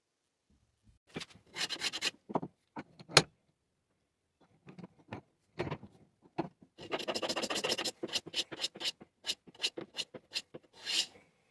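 Stanley No. 3 hand plane scraping along a Mackay cedar offcut, a series of planing strokes, some longer and some short and quick, with a sharp knock about three seconds in.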